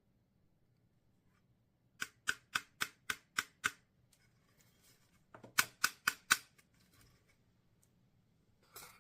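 Two quick runs of sharp clicks, about three a second: about seven, then a pause, then about five more.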